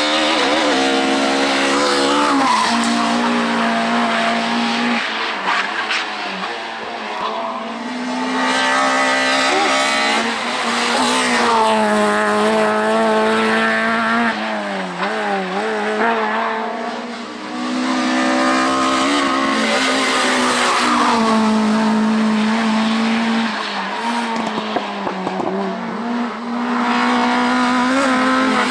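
Racing car engines revving hard on a hill climb, the pitch climbing through gear changes and dropping sharply for corners, again and again. There are short dips in loudness between runs.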